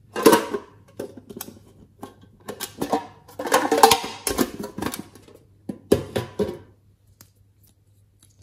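A small tin box being handled and opened, clattering and rattling in several irregular bursts.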